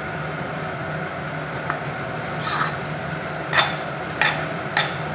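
A spatula stirring and scraping roasted gram flour (besan) in ghee around a kadhai, a steady rasping with several sharper scrapes against the pan in the second half. A steady low hum runs underneath.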